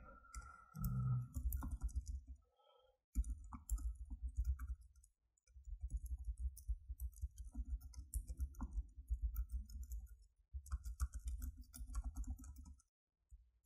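Computer keyboard being typed on: quick runs of keystroke clicks in bursts, with short pauses between them.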